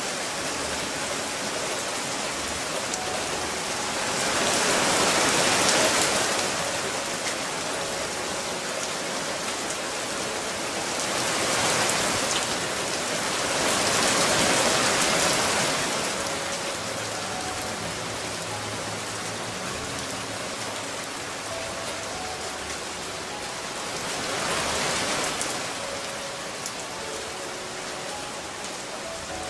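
Hail falling steadily on roofs and pavement: a constant hiss of small ice pellets landing, which swells louder three times for a few seconds each.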